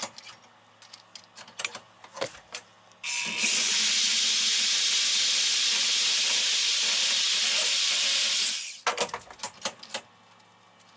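Portable band saw cutting through the thin wall of a welded aluminum box: a steady, hiss-like cut that starts about three seconds in and stops abruptly near nine seconds. Light knocks and clatter of the part being handled and turned in a vise come before and after the cut.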